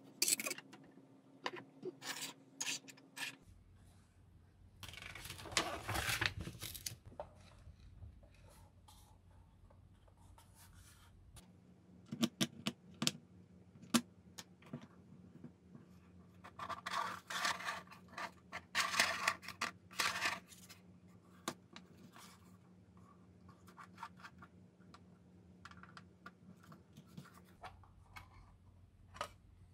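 Hands unwrapping small parts and sliding the black plastic tube sections of a telescope kit together: scattered light clicks and knocks, with longer stretches of scraping and rubbing about five seconds in and again from about seventeen to twenty seconds.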